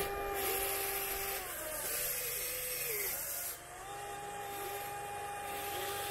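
Electric motors of a 1/14-scale Volvo EC160E RC excavator whining as it swings and digs with its arm and bucket. Two steady tones slide up and down in pitch in the middle as the motors change speed, then hold steady again.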